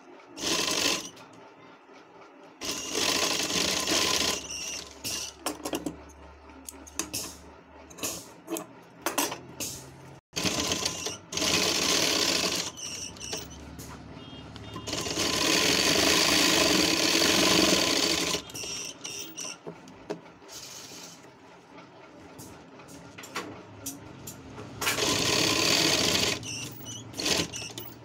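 Sewing machine stitching in several runs of one to four seconds, the longest near the middle, with fabric handling and small clicks in the pauses as the cuff is sewn onto a kurta sleeve.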